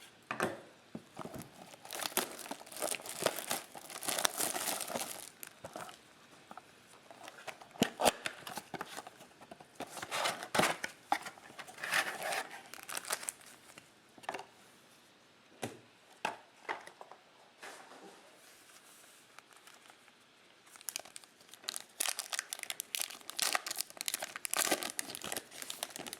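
Trading card pack wrappers crinkling and being torn open in irregular bursts of rustling and crackling, quieter for a few seconds past the middle.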